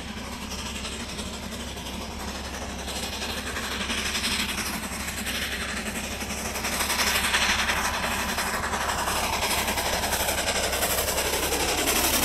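A 30-inch gauge Baldwin 2-8-0 steam locomotive built in 1911, working a loaded sugar-cane train, drawing near with a rhythmic beating exhaust and running-gear clatter that grows steadily louder.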